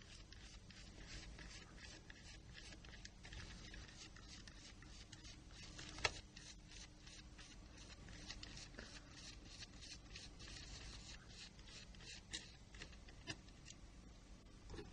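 Faint, quick ticking and scraping of a small Torx Plus screwdriver backing tiny screws out of a Nokia N-Gage phone's frame, with one sharper click about six seconds in.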